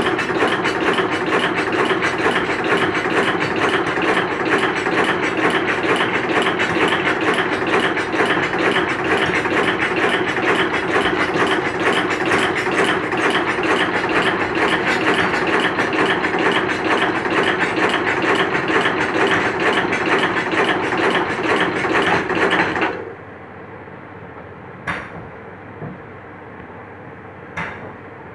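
Brush-making machine running, a fast, even clatter of repeated strokes as green plastic bristles are set into a cylindrical roller brush. It stops suddenly about three quarters of the way through, leaving a quieter steady hum with two sharp clicks.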